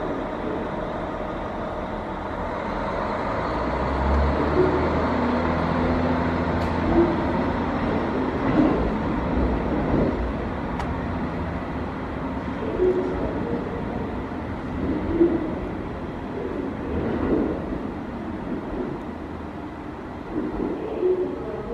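KiHa 40 diesel railcar pulling out of the station: a steady diesel engine rumble that swells about four seconds in and carries on as it pulls away. A bird's low cooing hoot recurs every few seconds.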